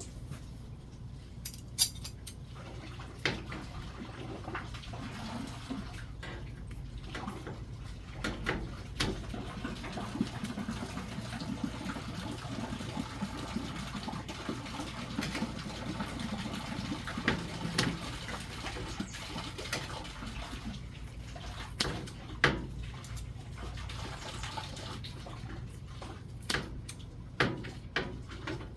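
Kitchen work: water running with scattered clinks and knocks of dishes and utensils, over a steady low hum.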